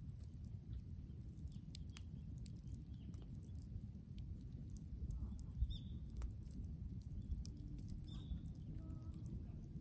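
Brushwood bonfire crackling, with scattered sharp pops over a steady low rumble.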